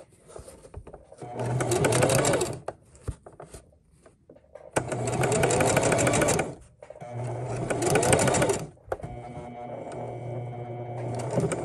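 Electric sewing machine stitching a seam in three short spurts, its motor rising in pitch as each one speeds up, then a quieter, steadier run near the end as it approaches the stopping point.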